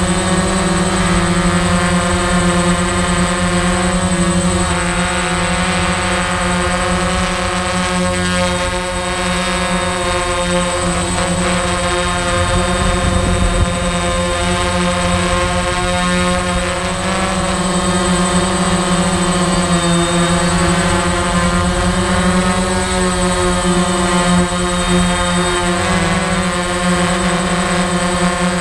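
Quadcopter drone's propellers and motors heard from the aircraft itself: a loud, steady multi-tone hum whose pitch wavers slightly as the motors adjust while it hovers and creeps along.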